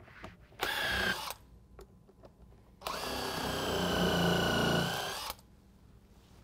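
Makita 18V cordless half-inch impact wrench spinning a power punch through a rubber conveyor belt to cut fastener holes. A short run comes about half a second in and a longer run of about two and a half seconds from about three seconds in, each a steady whine, with faint clicks of the tool being moved between holes.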